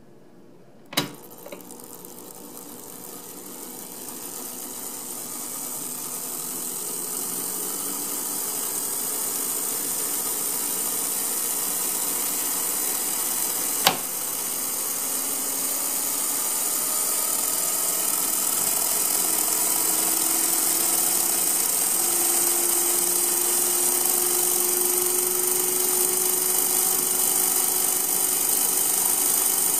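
Homemade electric model turbofan spooling up like a jet engine starting: its electric motor drives the fan and a 16:1 gear train and flywheel, and the whine rises steadily in pitch and loudness before levelling off. A sharp click comes about a second in, and another about halfway through as the model's fuel-control switch is flipped.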